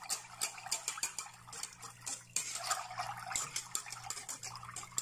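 Whisk beating a liquid milk mixture in a stainless steel pot: rapid, even clicks of the whisk against the pot, several a second, with the liquid sloshing.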